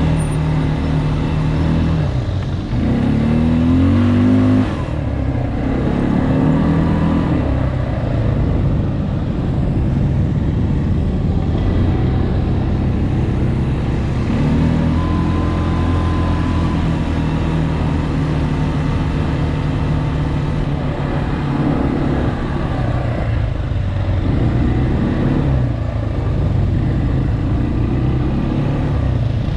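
ATV engine running under way, its pitch climbing and easing as the throttle opens and closes, over a steady rumble of the ride. The engine note rises a few seconds in, and again about halfway through.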